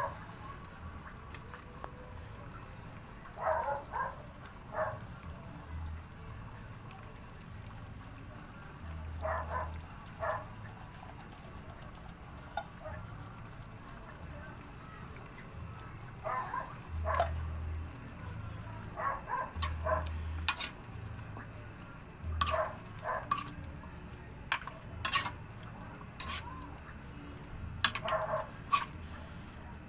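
A dog barking in short bursts of two or three, every few seconds. In the second half there are sharp clicks and taps from cookware as canned fruit is tipped into the wok.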